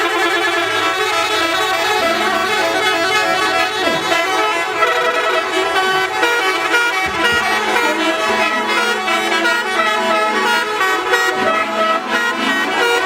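Indonesian 'telolet' bus horns playing their melodic multi-note tunes, several at once, so the notes overlap into shifting chords. A lower held tone comes in about seven seconds in.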